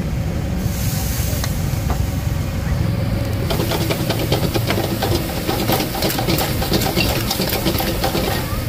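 Clams being stir-fried in a wok over a high-pressure gas burner: the burner keeps up a steady low roar with sizzling over it. From about three and a half seconds in, a dense rattle of spatula-on-wok clatter joins it.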